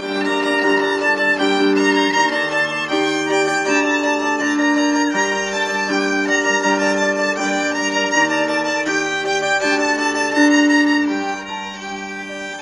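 Solo violin bowed live, playing a melody of held notes, most lasting about half a second to a second, and getting quieter near the end.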